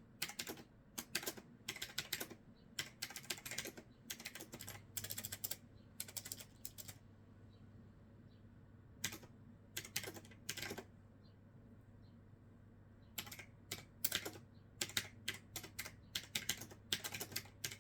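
Typing on a new clicky keyboard: fast, irregular runs of key clacks, with brief pauses between bursts.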